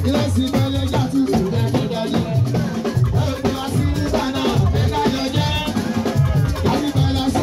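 Fuji music: drums and shaker percussion playing a dense, steady rhythm, with a pitched voice line bending over it.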